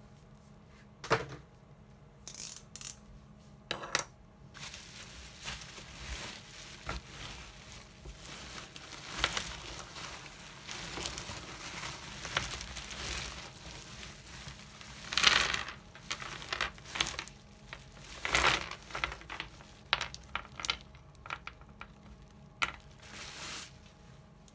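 Pink plastic bubble-wrap bag crinkling and rustling as it is handled and opened, with a heap of ELNA 680 µF 35 V radial electrolytic capacitors clattering against each other as they spill out onto paper. The sound is an irregular run of crackles and small clicks with a few louder bursts.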